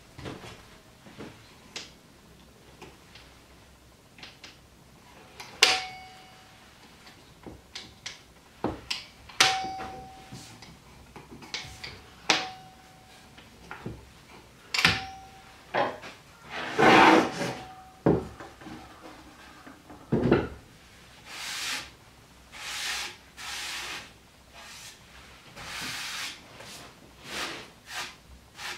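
A folding table's legs being swung open on metal folding brackets: a series of sharp metallic clicks, several followed by a brief ring, with wooden knocks and rattles as the cedar legs and top are handled. Near the end come several short rubbing strokes, about one a second.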